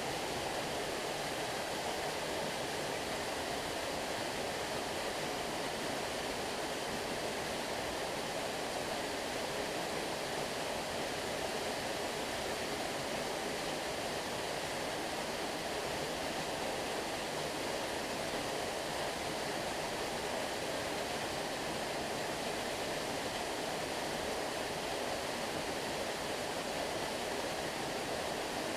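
Small waterfall running: a steady, even rush of falling water, strongest in the middle range, with no change throughout.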